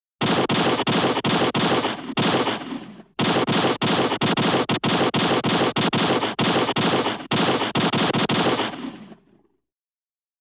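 Machine-gun fire sound effect. There are two long bursts of rapid, evenly spaced shots, about four or five a second: the first lasts about three seconds and the second about six. Each burst trails off in an echoing tail.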